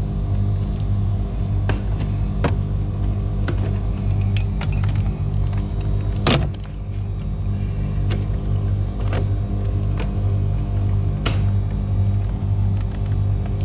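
Background music with a steady, pulsing bass line, over which come a few sharp clicks, the loudest about six seconds in.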